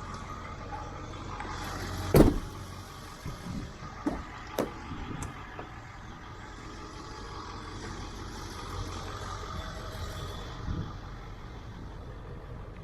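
Four-wheel-drive vehicle running slowly over a sandy trail, heard from inside the cab: a steady engine hum, with a loud thump about two seconds in and a few lighter knocks shortly after.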